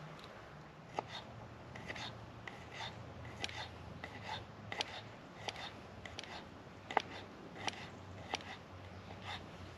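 Kitchen knife slicing garlic on a wooden chopping board: a run of light, sharp knocks of the blade on the board, about one every three quarters of a second, starting about a second in.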